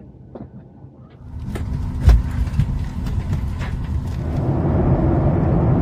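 Low rumble of a Boeing 737-800's cabin on the ground, with scattered clicks and knocks and one heavier thump about two seconds in. The rumble swells and grows louder past the middle.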